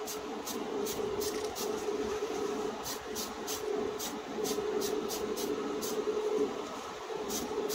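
Spray booth extraction fan running with a steady hum, while an aerosol can of hobby paint hisses in many short bursts, roughly two a second, as parts are sprayed.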